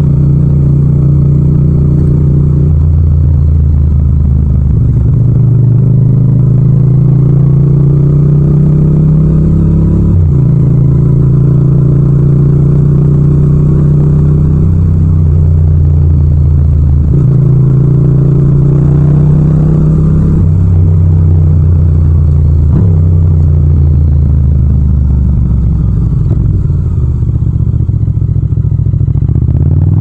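Yamaha MT-07's 689 cc parallel-twin engine under way, its note climbing under throttle and dropping sharply at several gear changes.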